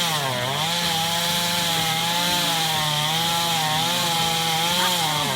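Chainsaw running at high revs while cutting wood. Its pitch dips briefly about half a second in, then holds steady with a slight waver.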